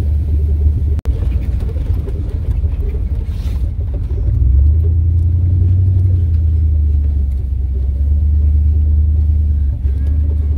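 Cab interior of a 1996 GMC Sierra K1500 pickup driving a dirt trail: low engine and drivetrain rumble with tyre and body noise. The engine note grows louder and steadier about four and a half seconds in.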